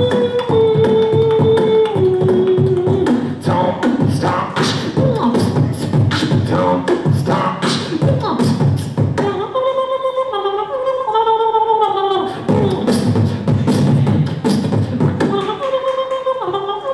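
Human beatboxing into a handheld microphone: fast kick, snare and hi-hat sounds made with the mouth. At first a held vocal note runs under the beat and steps down in pitch. About ten seconds in, and again near the end, a pitched vocal melody line is carried over the beat.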